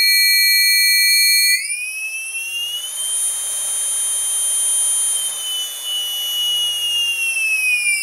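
Hobbyking Multistar 570kv brushless motor giving off an awful high-pitched whine. The steady tone glides up in pitch about 1.5 s in as the motor speeds up, holds, then glides back down near the end, with a hiss underneath while it runs fast. Hobbyking puts the whine down to induction noise from the ESC's motor timing.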